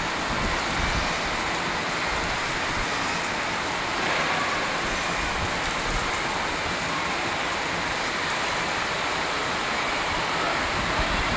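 Heavy rain falling steadily: a dense, even hiss of raindrops.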